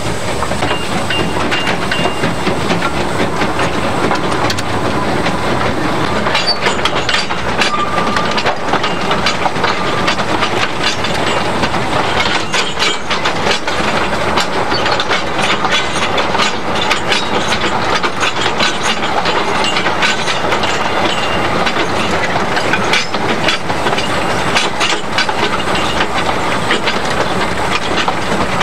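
Cab noise of a two-foot-gauge Fowler steam tank locomotive working along as it climbs: a steady run of engine and rolling noise, with frequent clicks and knocks from the wheels and rail joints, busier after the first few seconds.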